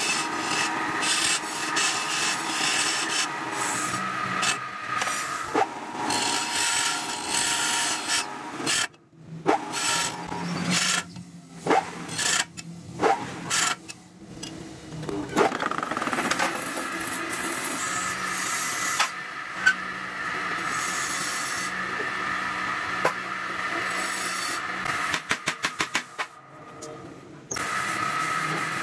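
Wood lathe spinning a wooden ring while a hand-held turning chisel scrapes into its inner groove: a steady scraping hiss over the hum of the running lathe, broken by several short stops in the middle. Near the end comes a quick run of about seven clicks, then a brief lull.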